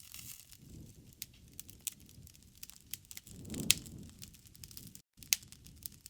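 Wood fire crackling, with scattered sharp pops over a low, swelling rumble of flames. Two louder pops stand out, one past the middle and one near the end. The sound cuts out completely for a split second just before the second pop.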